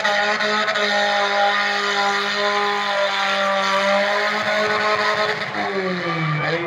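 Compact demolition-derby car engine held at high revs with a steady, high pitch, then easing off and falling in pitch near the end.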